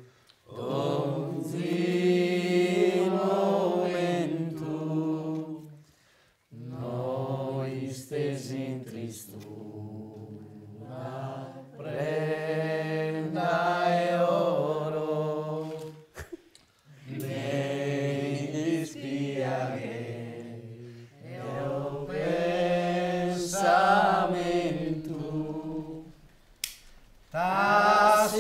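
Unaccompanied singing of a slow Italian song, in long held phrases of a few seconds each, broken by short pauses for breath.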